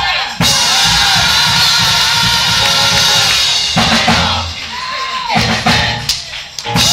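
Live church band music driven by a drum kit, with bass drum and snare, under gliding pitched parts. It dips briefly about four seconds in and again near the end.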